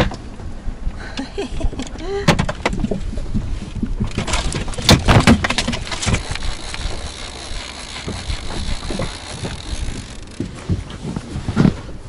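Handling noises aboard an inflatable boat while a fish is unhooked and the tackle sorted: irregular knocks, clicks and rustles, loudest in a cluster about four to five seconds in.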